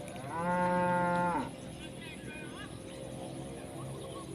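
A cow mooing once: a single call about a second long, rising at the start, held steady, then dropping off at the end.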